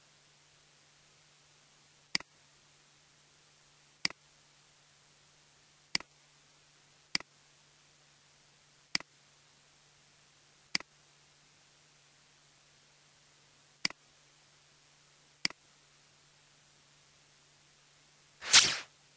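Computer mouse clicking: eight sharp clicks spaced about one to three seconds apart, each with a softer second click just after it, over a faint steady hum. Near the end a louder burst of noise lasts about half a second.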